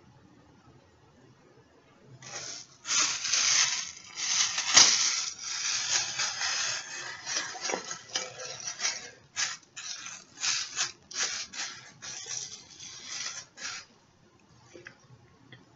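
Clear plastic shower cap crinkling and rustling close to the microphone as it is pulled on and adjusted over the hair. It comes in irregular bursts, starting about two seconds in and stopping a little before the end.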